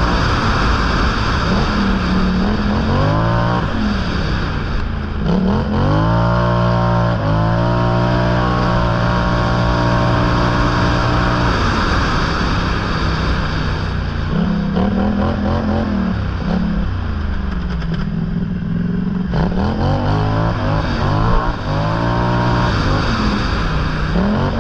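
Engine of an off-road vehicle revving up and easing off repeatedly, its pitch rising and falling with the throttle, with steadier running in between.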